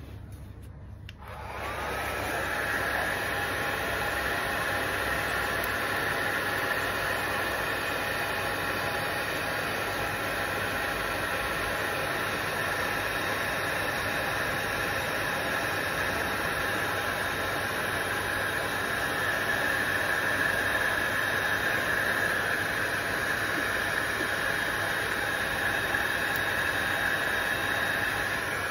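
Workzone heat gun switched on about a second and a half in, its fan motor whining up to speed, then blowing steadily while it warms vinyl graphics on a car bumper.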